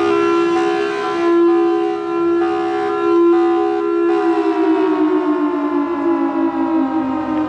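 Loud siren wail: a held chord of steady tones that, from about halfway, slides slowly down in pitch with a fast wobble, like a siren winding down.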